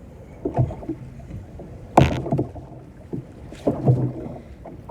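Knocks and handling noises aboard a small fishing boat, with one sharp, loud knock about two seconds in and a couple of duller thumps later.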